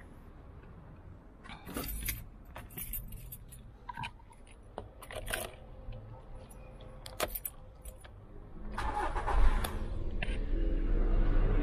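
A few clicks and rattles, then about nine seconds in the Volkswagen SpaceFox's engine is started: a brief noisy burst as it cranks and catches, settling into a steady low idle.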